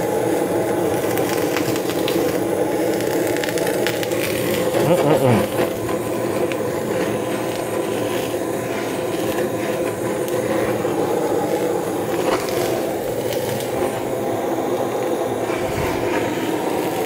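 Blazer butane kitchen torch burning steadily, its flame played over fish skin to sear it. There is a brief downward-sliding sound about five seconds in.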